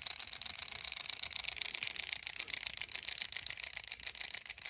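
Clockwork mechanism of a small wind-up toy robot running down: a fast, steady train of tiny mechanical clicks, about ten a second. Its spring seems pretty worn out.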